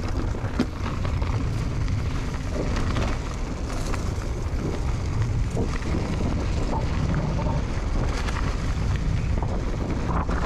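Wind rushing over a GoPro's microphone and the rumble and rattle of a Canyon Spectral mountain bike rolling fast over rough trail, with scattered sharp knocks from the bike.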